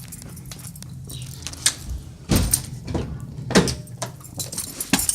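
Keys and car fittings being handled: a few separate clicks and knocks over a low steady hum, which fades near the end.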